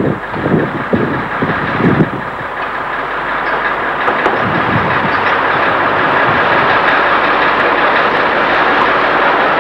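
A tram running: a steady rolling rumble that builds over the first few seconds and then holds. Gusts of wind hit the microphone during the first two seconds.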